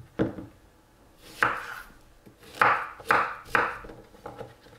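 Chef's knife chopping a courgette on a wooden cutting board: about five cuts, each ending in a knock of the blade on the board, three of them in quick succession in the second half.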